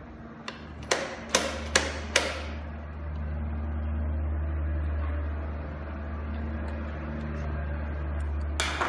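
Four or five sharp metallic clicks and knocks about half a second apart, then another knock near the end, as the parts of a fingerprint door lock are handled and fitted onto a door panel. A steady low hum runs under them.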